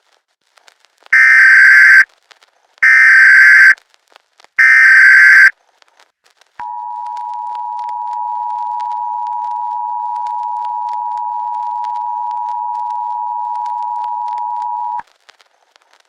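Emergency Alert System alert tones: three loud one-second bursts of SAME header data tones, then the steady two-tone EAS attention signal (853 and 960 Hz) held for about eight seconds before cutting off sharply. These tones signal that an emergency message is about to follow.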